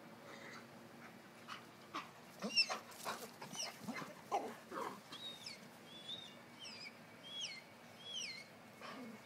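Dogs at play: knocks and scuffles, then a steady run of short high-pitched squeals, each sliding up and then down, about one and a half a second.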